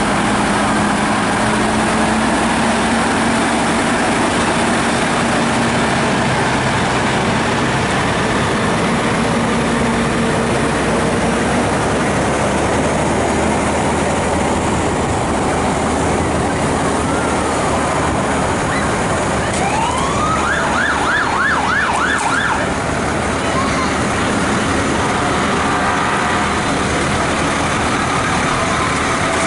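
Fire trucks' engines running as they roll slowly past. About twenty seconds in, a siren sweeps up and breaks into a fast yelp for a couple of seconds, then cuts off.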